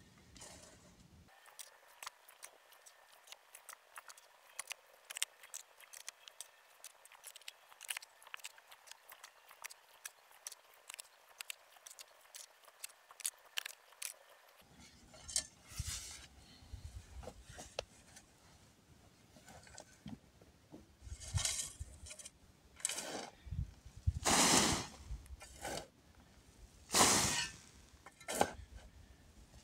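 Many light clicks and clinks in quick succession, then a series of scraping strokes, each lasting under a second, that grow louder toward the end.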